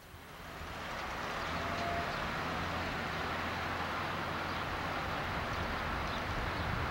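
A motor vehicle's engine running steadily with a low hum under an even outdoor hiss, rising in at the start and then holding level.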